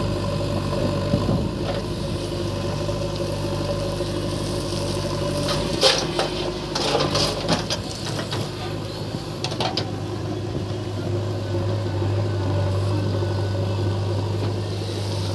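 Heavy-equipment diesel engine running steadily, with a cluster of knocks and clatter from the machinery about six seconds in and one more knock a few seconds later.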